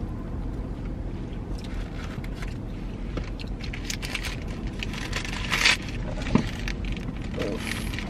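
Chewing of fries with crisp clicks, then the paper wrapper of a burger crinkling loudly as it is handled a little past halfway, with a thump just after. A steady low hum runs underneath.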